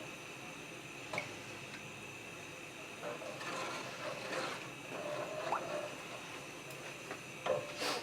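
A spoon stirring coconut milk and cream into the curry sauce in a pot, with soft wet swishing in the middle and a few light knocks of the spoon against the pot.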